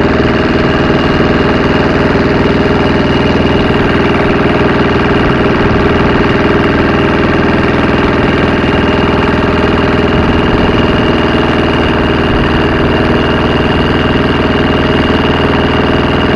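Small deck-mounted inboard engine of a wooden motor boat running steadily at a constant speed as it drives the boat along.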